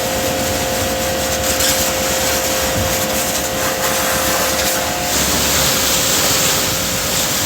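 Steady mechanical noise with a hiss and a steady hum that stops about five seconds in.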